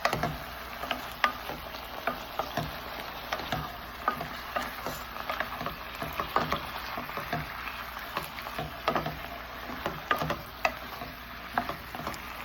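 Seasoned chicken pieces frying in a pan, with a steady sizzle, while a utensil stirs them, giving frequent irregular taps and scrapes against the pan.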